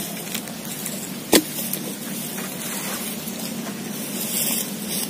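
Pitu-pitu, a Bugis rattan-and-bamboo kite hummer, droning steadily on a flying kite over a hiss of wind. A single sharp click about a second in.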